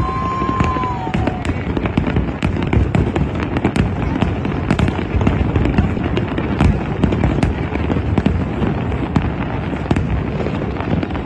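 Fireworks display going off in quick succession: a dense stream of bangs and crackles over a continuous low rumble.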